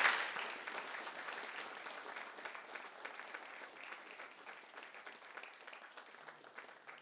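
Audience applauding, the clapping dying away steadily to a few scattered claps near the end.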